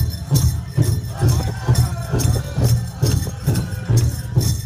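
Powwow drum group playing a grass dance song: a big drum struck in a steady beat of about two strokes a second, with singing over it.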